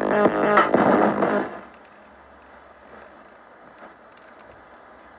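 Music playing from the Soundesign 4628BLK boombox's FM radio cuts out about a second and a half in as the tuning knob is turned off the station, leaving only faint hiss from the radio between stations.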